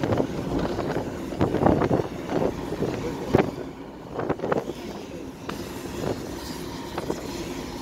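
A car driving along a wet road, with tyre and wind noise heard from inside the car. A few brief knocks stand out, the sharpest about three and a half seconds in.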